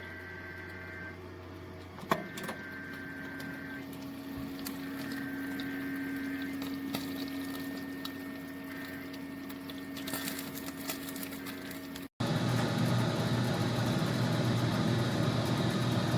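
A sharp click, then a steady electric-motor hum from about two seconds in. About twelve seconds in the sound cuts off abruptly and a louder, steady rumbling noise takes over.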